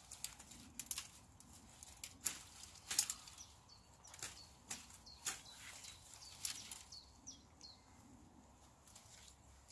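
Dry plant stalks and twigs cracking and rustling as they are handled and snapped among undergrowth: a run of sharp, irregular snaps, the loudest about three seconds in.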